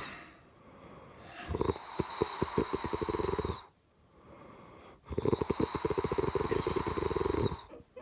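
Heavy snoring in slow cycles: two long, loud snores with a fast rattling flutter, each about two seconds long, separated by quieter breaths.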